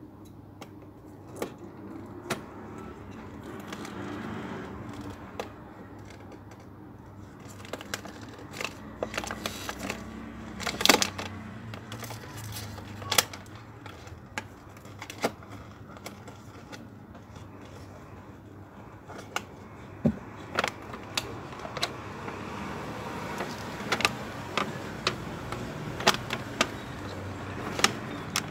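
A cardboard product box being handled and opened by hand: scattered sharp clicks, taps and rustles of the cardboard and packaging over a steady low background hum.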